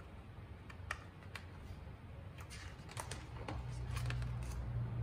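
Soft scattered clicks and light rustles of a picture book's pages being handled and turned.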